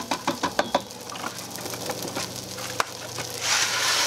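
Dry rice pilaf mix poured from a cardboard box into a stainless steel pot of melted butter. The grains and little pasta pieces tick and rattle against the pot, about a second of dense clicking followed by scattered ticks. Near the end comes a louder rushing hiss as a fuller stream pours in.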